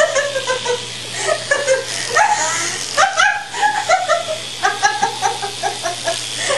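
A person laughing and squealing at a high pitch while being tickled, in quick short bursts that slide up and down in pitch.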